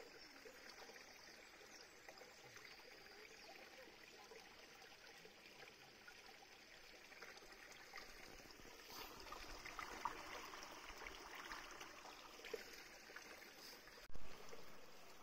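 Faint, steady trickle of a small mountain stream running as a thin sheet of water over granite rock. A single sharp knock comes near the end.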